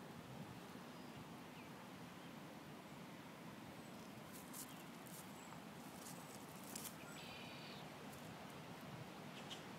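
Quiet outdoor ambience: a faint steady hiss with a few soft clicks and rustles, and one brief high chirping call about seven and a half seconds in.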